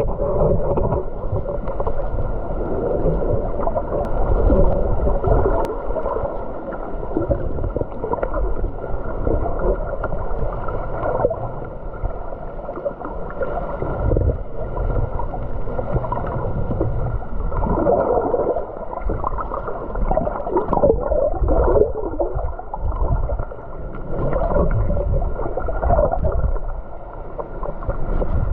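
Muffled water movement and gurgling heard underwater, swelling and fading in irregular surges.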